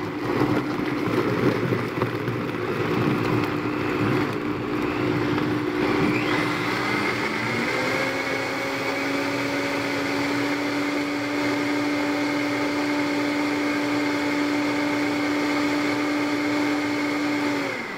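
Countertop blender running at speed, blending frozen pineapple, Shakeology powder and water into a shake. The churning settles into a steadier, slightly lower hum about seven seconds in, and the motor switches off just before the end.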